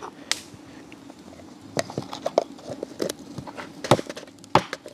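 Irregular light knocks and clicks from cooking containers and utensils being handled while flour is seasoned, the loudest two a little before the end.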